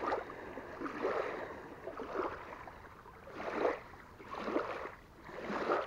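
Small waves lapping on a sandy shore, washing in and out about once a second.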